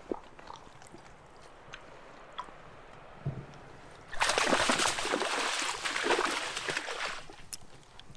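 Water splashing and sloshing for about three seconds, starting about four seconds in after a few faint clicks.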